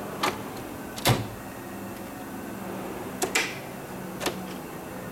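Metal tool chest drawers being pulled open and shut: a few sharp knocks and clacks, the loudest about a second in and two in quick succession past the middle.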